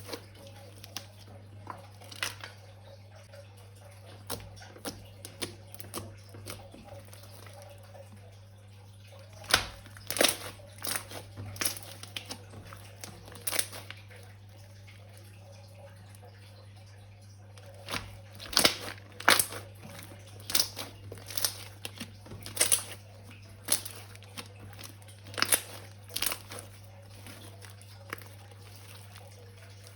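Slime being worked by hand, giving irregular crackling and popping clicks in scattered clusters with quiet gaps between.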